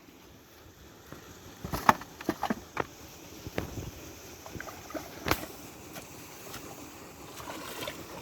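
A series of short, sharp splashes and knocks in water over a steady watery rush: a cluster about two seconds in and a single one about five seconds in.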